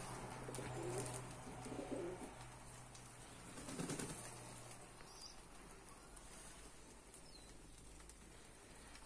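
Domestic pigeons in a flock cooing softly, a few coos in the first two seconds and again about four seconds in, over a faint low hum that fades out about halfway.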